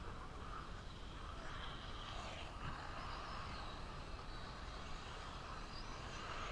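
1/8-scale electric truggies running on a dirt track, the whine of their electric motors rising and falling over a steady low rumble.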